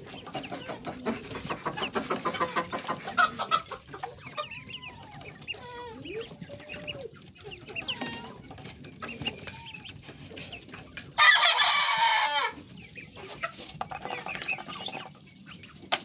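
Farmyard chickens clucking and calling, with one loud rooster crow lasting about a second and a half a little past the middle.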